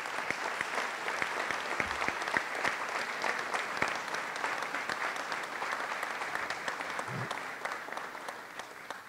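Audience applauding: many hands clapping in a dense, even patter that thins out near the end.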